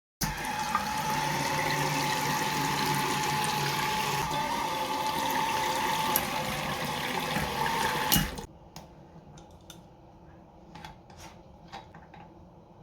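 Bathroom washbasin faucet running, with a steady whistling tone over the rush of water: the noise fault that the owner puts down to a dirty spout aerator. The water cuts off suddenly about eight seconds in, followed by a few faint clicks.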